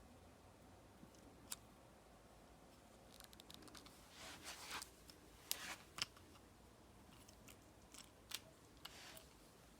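Near silence broken by a few faint sharp clicks and short scratchy sounds, bunched in the middle and again near the end.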